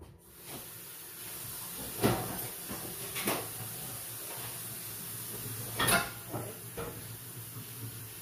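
Kitchen clatter: several sharp knocks of pots and cupboard doors, the loudest about two seconds and six seconds in, over a steady hiss that starts half a second in.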